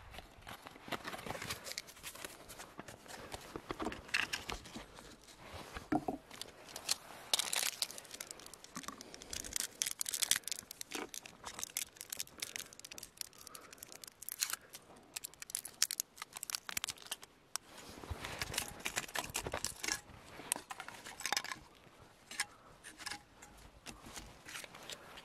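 Crinkling and tearing of aluminium foil and of the foil wrapper of an Esbit solid fuel tablet being opened by hand. Scattered clicks and light knocks come from the small metal stove stand being handled on the wooden table, with two busier stretches of rustling, one a quarter of the way in and one about three quarters through.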